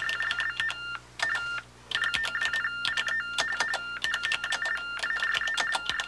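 Keys clicking on a text telephone (TTY) as someone types, each character sent down the line as a quick chirp of two alternating high tones, the Baudot signal of a TTY call. Typing and tones stop briefly about a second in and again just before two seconds.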